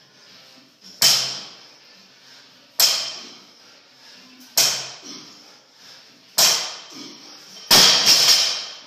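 A loaded 225 lb barbell with plates set down hard on a rubber floor after each deadlift rep: five impacts about two seconds apart, each with a ringing metal clank. On the last, near the end, the bar is dropped and clatters and bounces for about a second.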